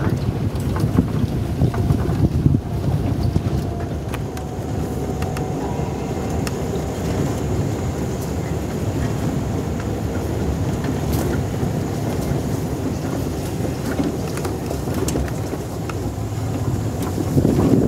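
Vehicle driving along a rough dirt track, its engine running steadily with wind rushing over the microphone. There are a few knocks and rattles in the first few seconds, and the rumble grows louder near the end.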